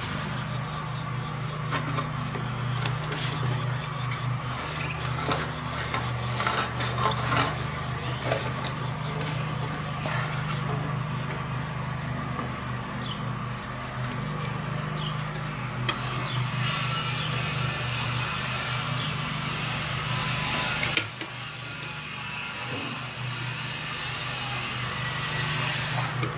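Scattered light clicks and knocks of the VW mechatronic unit being handled and worked into the transmission housing, over a steady low hum. In the second half a stretch of hissing rustle runs for several seconds and cuts off suddenly.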